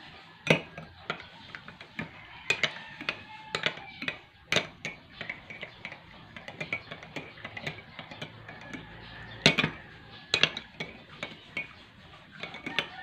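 Metal spoon clinking against a plate and a coffee mug: sharp, irregular clinks, loudest about half a second in and again about nine and a half seconds in.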